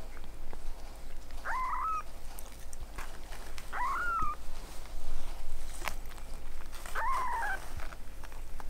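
A week-old kitten mewing three times, short high calls that rise and then bend down, with small clicks and rustles between them.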